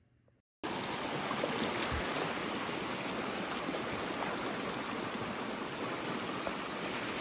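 Creek water rushing steadily, starting abruptly about half a second in after a brief near-silence.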